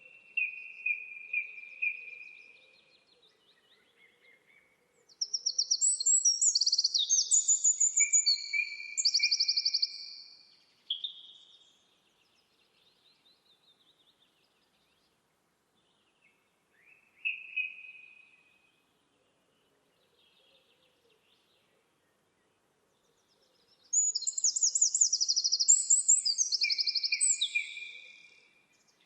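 A small songbird singing in the open: two long, rapid, high-pitched trilling phrases of about five seconds each, with a few shorter notes between them and quiet gaps.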